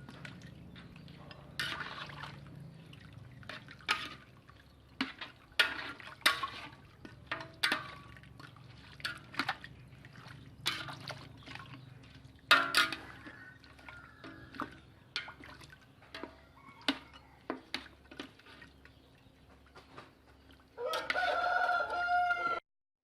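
A spoon or ladle knocking and scraping against a large pot of chicken curry as it is stirred, in irregular clicks and clatters. Near the end a rooster crows once.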